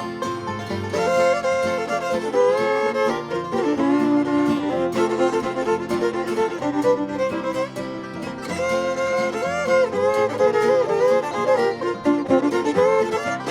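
Live bluegrass band playing an instrumental break, with a fiddle taking the lead in a sliding, ornamented melody over banjo and guitar.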